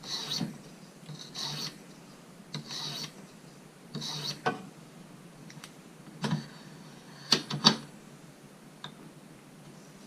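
Pocket-knife blade stroked along a medium-coarse 50/40-micron stone on a TSProf guided sharpener: four short hissing grinding strokes in the first half, then a few sharp clicks.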